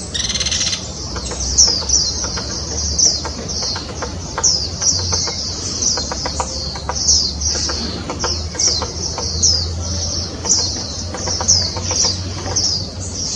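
Birds chirping: a steady run of short, high, falling chirps, about two a second, with a brief buzzy call right at the start.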